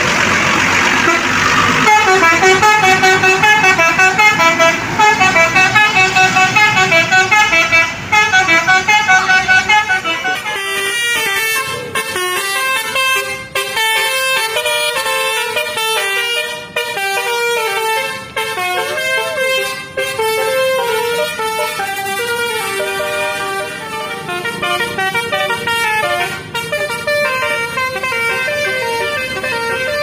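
Tour buses' multi-tone 'telolet' musical horns playing melodies: a fast, evenly pulsing tune of rising and falling notes from about two seconds in, changing about ten seconds in to a different melody of stepping notes.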